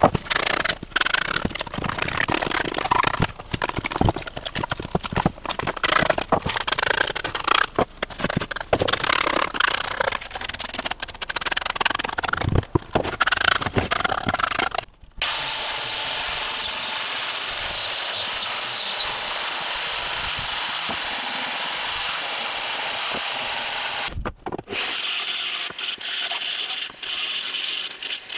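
Irregular scraping and rubbing on wood for about fifteen seconds. Then the steady hiss of an angle grinder's abrasive disc sanding a peeled log, with a brief break a few seconds before the end.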